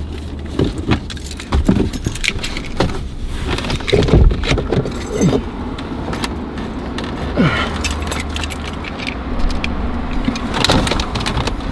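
A man clambering between the seats inside a car: clothing rustling and scraping against the seat upholstery, with many clicks and knocks, over a low steady hum that fades about eight seconds in.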